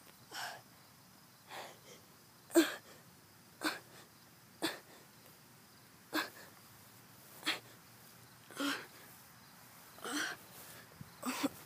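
A person's sharp, breathy gasps close to the microphone, about one a second and each brief.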